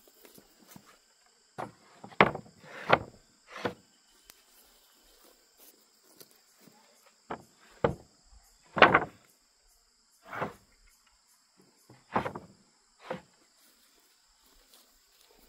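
Sawn wooden planks being laid down onto a stack of boards: a series of about ten separate wooden knocks and clatters at irregular intervals, the loudest about nine seconds in.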